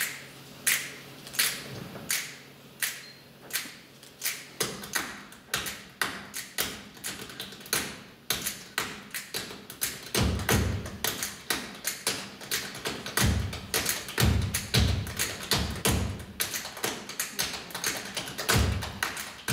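Group body percussion: sharp finger snaps and hand claps, spaced evenly at first and then building into a dense interlocking rhythm. From about ten seconds in, deep chest slaps join.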